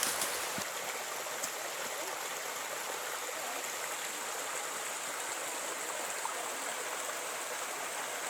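Mountain stream rushing: a steady hiss of running water with no rhythm or pitch.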